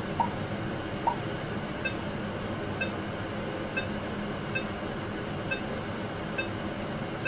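Short electronic beeps from a pulse-wave sensor's smartphone app, one with each detected pulse beat, at about once a second. They start as a tone near 1 kHz and change about two seconds in to sharper, higher ticks, over a steady background hiss.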